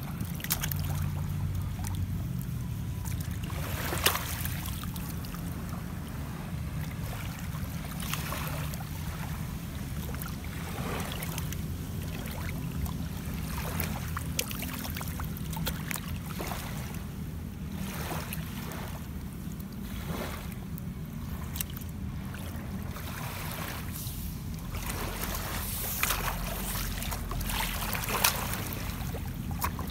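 Shallow seawater splashing and dripping as wet sand and water are scooped up and tossed, with short sharp splashes every second or two. Under them runs a steady low rumble of wind on the microphone.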